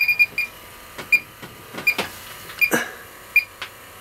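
Electronic refrigerant leak detector beeping intermittently, a short high beep about every three quarters of a second: its normal search rhythm, not the continuous tone of a positive leak detection. A couple of brief hisses sound about two seconds in.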